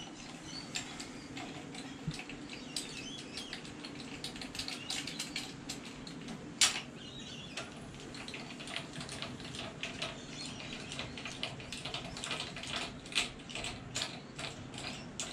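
Ratchet with a 13/16-inch socket clicking quickly as main bearing cap bolts are backed out of a Ford 351 Cleveland V8 block, with scattered light metal taps and one sharper click about six and a half seconds in.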